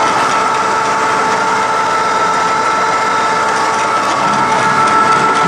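Vertical milling machine running, with a steady motor and spindle whine holding several constant tones over a loud, even machine noise.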